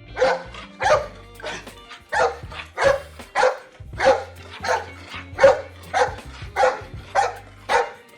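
A dog barking repeatedly at a steady pace, about thirteen similar barks, roughly one every two-thirds of a second.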